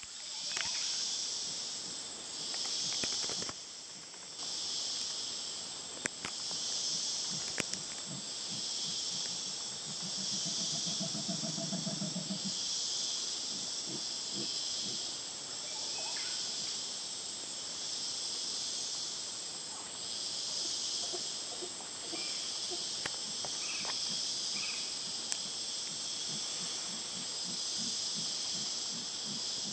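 Rainforest insects droning steadily in a high, pulsing chorus. About ten seconds in comes a short, low grunting call of about two seconds from a howler monkey. Occasional sharp clicks and rustles are heard.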